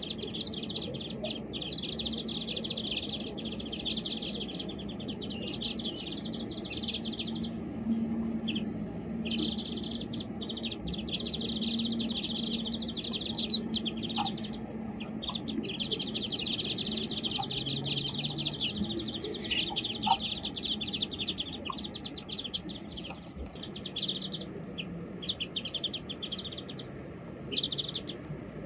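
Warbling white-eye (mejiro) singing a rapid, high twittering warble in long runs of several seconds, with short breaks between them.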